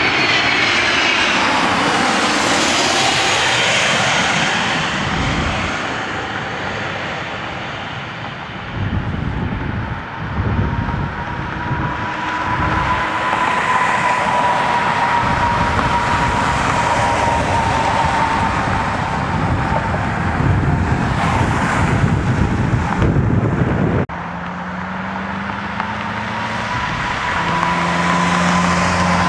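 Business jet's twin rear-mounted turbofan engines running on the runway: a steady whine that drifts slowly in pitch over a broad rush of jet noise. The level drops suddenly about three quarters of the way through.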